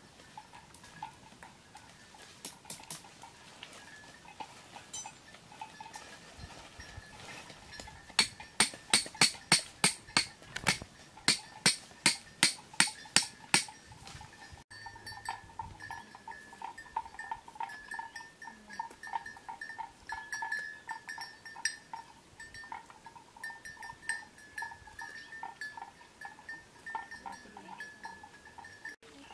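A run of sharp, evenly spaced knocks, about three a second for some five seconds. Then, after a cut, cattle bells clonk over and over.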